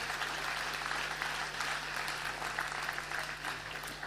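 Audience applauding steadily, a hall full of clapping hands.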